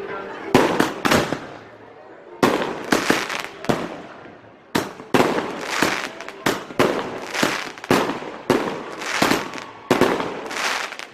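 Fireworks going off: clusters of sharp bangs, each with a ringing tail, coming more and more densely from about five seconds in.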